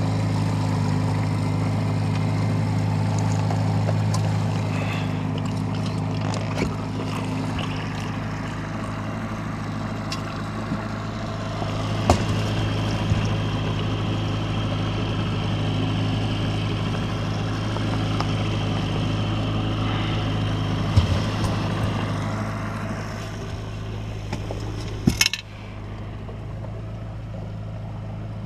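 Outboard motor running steadily at trolling speed, an even low drone. A few sharp knocks from gear being handled in the boat come through over it, the clearest about halfway through and near the end.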